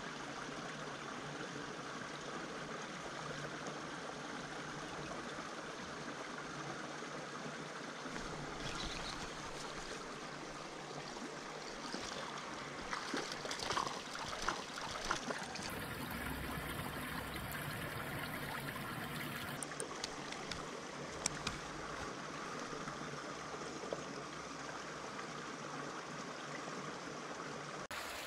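Mountain stream flowing steadily over rocks. About halfway through, a few short sharp splashes as a hooked fish thrashes at the surface.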